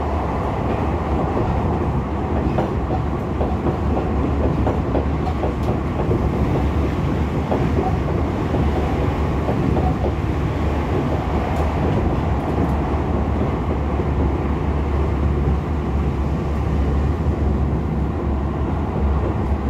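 Interior running noise of a Tokyo Metro 16000 series electric train under way: a steady rumble of wheels on rail, with a few faint clicks.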